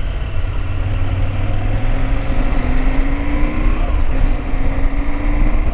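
KTM 790 Adventure's 799 cc LC8c parallel-twin engine pulling under acceleration: its pitch rises, dips as it shifts up a gear a little before four seconds in, then rises again.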